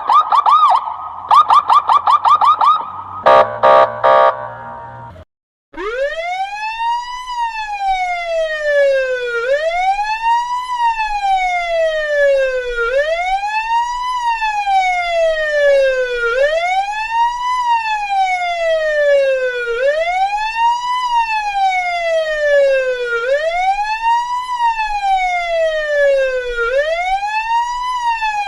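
Russian police car electronic siren: a fast yelp for about three seconds, then several loud pulsed blasts of the 'kryakalka' quacking signal. After a brief cut, a slow wail rises and falls about every three and a half seconds.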